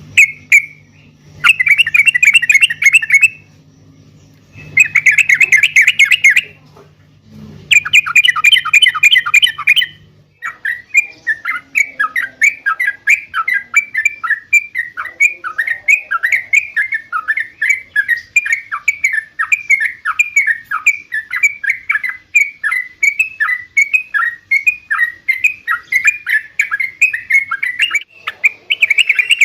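Yellow-vented bulbul (trucukan) singing loudly. First come rapid chattering phrases about two seconds long with short pauses, over a steady low hum. About ten seconds in they give way to a long run of quick, short repeated notes, several a second, and a chattering phrase returns near the end.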